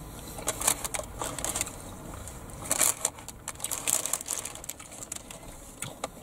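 Close-up crunching of someone chewing crispy deep-fried chip-shop food, battered pizza and chips: irregular crackly crunches that come in several short runs.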